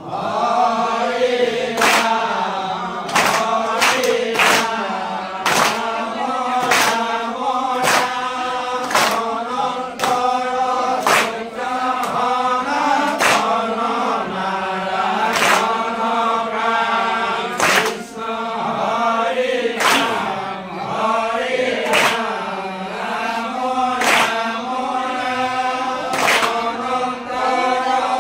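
A group of devotees chanting naam, Assamese Vaishnavite devotional singing, in unison. Hand claps keep time at roughly one a second.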